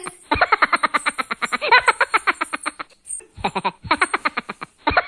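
Rapid, pulsing laughter, a quick run of 'ha' sounds about ten a second, in three stretches with brief breaks about three seconds in and again near the end.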